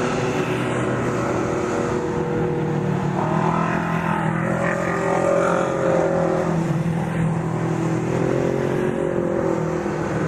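Off-road race vehicles' engines running at low speed. The pitch rises and falls a little twice, about a third of the way in and again near the end.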